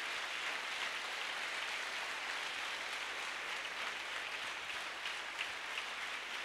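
A large congregation applauding, many hands clapping at a steady level.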